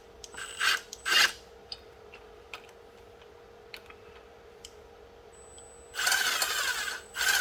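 Handheld power driver run in short bursts while bolting on a power steering pump: two brief runs in the first second or so, a longer run of almost a second about six seconds in, and another short one at the end, with small clicks of metal parts between.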